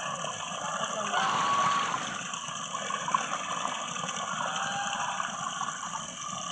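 Domestic geese eating wet feed: a steady watery slurping and dabbling as their bills work through a soaked mash of leftover rice and paddy grain.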